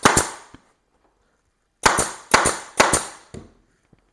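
Staple gun firing 6 mm staples into a motorcycle seat cover: one sharp crack at the start, then three more about half a second apart from about two seconds in.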